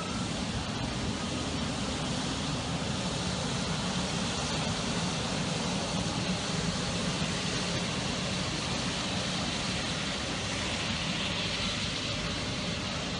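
Steady airport apron noise as an airliner is moved slowly across the ramp: a low engine rumble under an even hiss, with no single event standing out.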